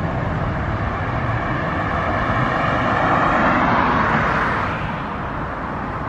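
A vehicle passing, its noise swelling to a peak about four seconds in and then fading, over a steady low rumble.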